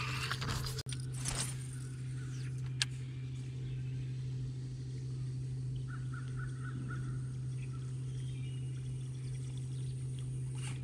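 A steady low hum runs throughout, with a short run of faint bird calls about six seconds in and a single click just before three seconds.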